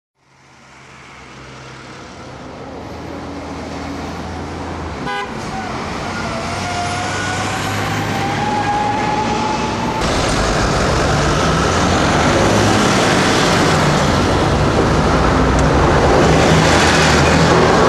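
City road traffic fading in from silence and growing steadily louder, with car horns sounding.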